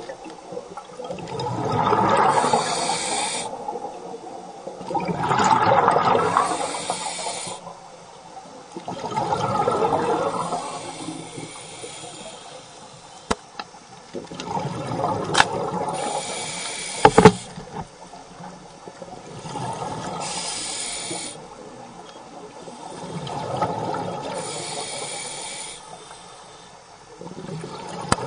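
Scuba regulator breathing underwater: rhythmic cycles of exhaled bubbles alternating with the hiss of inhaling, about six breaths, one every four seconds or so. A few sharp clicks come in the middle, the loudest about two-thirds of the way through.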